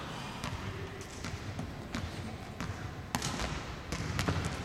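Volleyballs being hit and bouncing on an indoor court: several sharp, irregularly spaced smacks, each echoing through a large empty hall.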